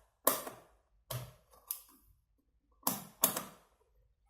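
Rotary selector switch of a multimeter clicking through its detents as it is turned to the continuity/diode setting: about five sharp clicks, unevenly spaced, with a short pause near the middle.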